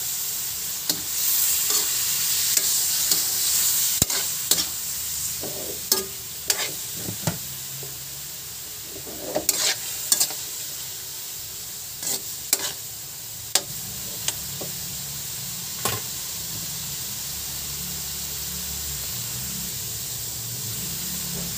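Diced pork, onion, tomato and garlic sizzling in hot oil in a wok, with a spatula scraping and knocking against the pan as the food is stirred. The knocks come often for most of the stretch, then only a steady sizzle near the end.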